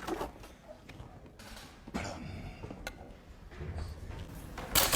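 A few scattered faint clicks and rustles, then near the end a loud, fast, even clatter of typewriter keys starts.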